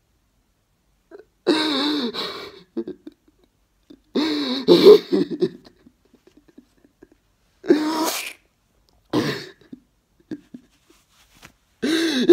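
A man sobbing hard: about five loud, wailing outbursts of crying a couple of seconds apart, with short silences between them.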